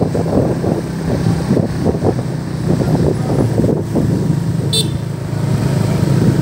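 Vehicle engines running in slow street traffic, a steady low drone with wind buffeting the microphone. A short high-pitched toot comes about five seconds in.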